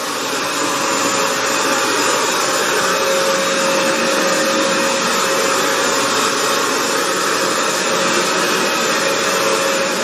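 Hoover FloorMate Edge wet floor cleaner running steadily, its motor giving an even whine with a constant tone as it scrubs a tile floor.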